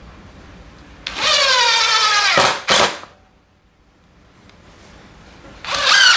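DeWalt DCF787 18V cordless impact driver driving screws into wood: a loud run of about a second and a half with its pitch sliding down, then a short blip of the trigger. Near the end it starts driving the next screw.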